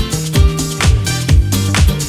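Dance music with a steady kick drum and bass line, about two beats a second.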